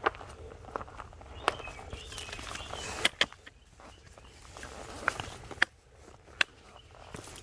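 Footsteps of a hiker walking a trail, with irregular sharp clicks and knocks as the steps strike the ground.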